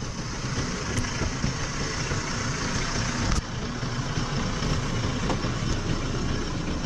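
Chevrolet Trailblazer Z71 SUV driving on the road: a steady rush of tyre, wind and engine noise.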